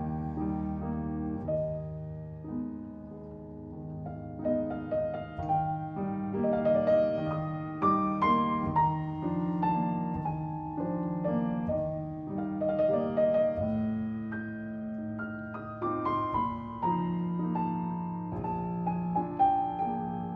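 Piano playing an instrumental Christmas piece, a melody over ringing chords.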